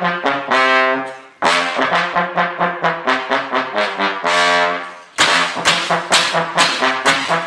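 Brass instruments playing a tune in quick short notes, about three or four a second, with two longer held notes that fade away about a second in and again near five seconds. After that the notes come louder and sharper.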